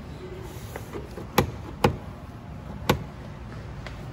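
Three sharp clicks against a low steady hum, the first two close together and the third about a second later.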